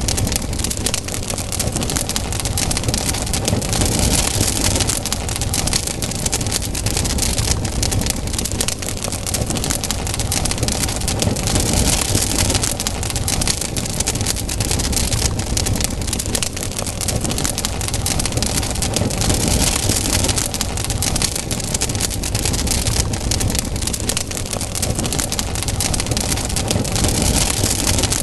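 Campfire burning, crackling steadily with dense small pops over a low rumble; the hiss swells and eases about every eight seconds.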